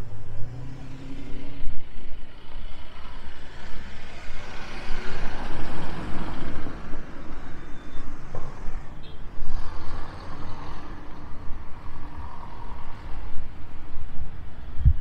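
Street traffic passing by. A vehicle's noise swells up and fades away around the middle, and a second, smaller pass follows a few seconds later.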